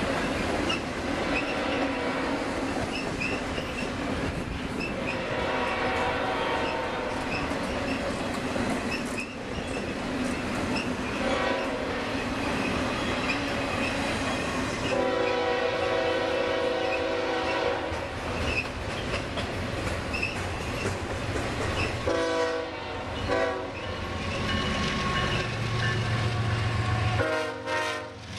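A double-stack container train passing slowly, its steel wheels rumbling and clicking on the rails. A locomotive horn sounds for about three seconds around the middle, followed by shorter blasts later on.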